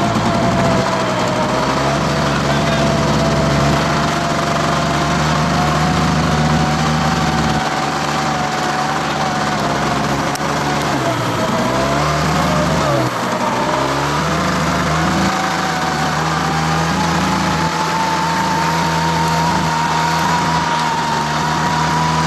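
Motor vehicle engine running while driving, its pitch dipping and recovering briefly twice, with a thin steady whine that slowly rises in pitch over the second half, over a wash of wind and road noise.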